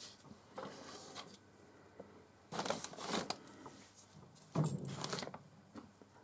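Short scraping and rustling handling noises from tools being set up at a metal lathe. The two loudest come about two and a half and four and a half seconds in, and no machine is running.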